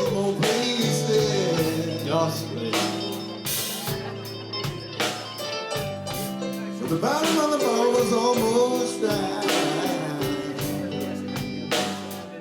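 A song with singing over guitar, bass and drums; the vocal lines bend up and down near the start and again in the middle, between steady beats.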